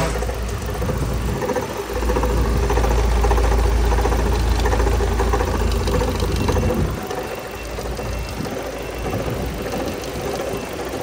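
Chevrolet Cruze 1.8-litre four-cylinder petrol engine running with a whirring, knocking noise, which the mechanic traces to a failing water pump. The engine runs louder for a few seconds, then drops back near the middle.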